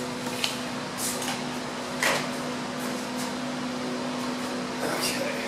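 A steady machine hum holding one pitch throughout, with a few light knocks and clicks scattered through it, the sharpest about two seconds in.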